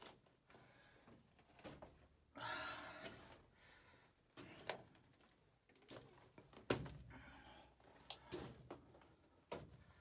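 Footsteps scuffing and knocking on loose rock and gravel, quiet and irregular, about one a second, with a longer rustling scrape a couple of seconds in.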